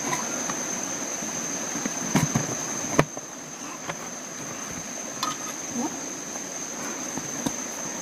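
Insects droning steadily at a high pitch. A few knocks and rustles of handling sound over it, the sharpest about three seconds in.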